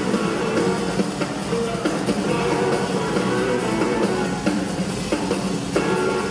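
Live rock band in full flow, its two drum kits playing a driving beat under electric guitar and other amplified instruments.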